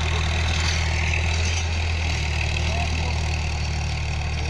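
Massey Ferguson 7250 tractor's 50 hp diesel engine running steadily under load, pulling a rotavator; a constant low drone.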